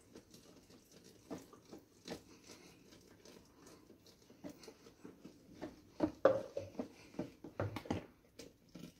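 A spoon stirring a thick, foamy detergent mixture in a plastic basin, with irregular small clicks and knocks against the basin's sides. The knocks come thicker and louder in the last three seconds.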